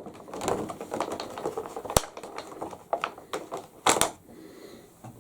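A bobblehead figure's box and its packaging being handled as the figure is taken out: irregular clicking and rustling, with a sharp click about two seconds in and a couple more near four seconds.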